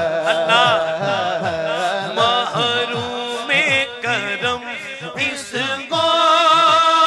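Male naat reciter singing a long, ornamented melodic passage into a microphone, the pitch wavering quickly, then settling into a long held note about six seconds in. A regular low rhythmic pulse runs underneath.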